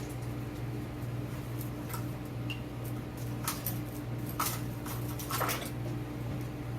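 Scattered clicks and metal clinks of small hand tools being sorted through in a drawer while looking for a screwdriver, over a steady low electrical hum.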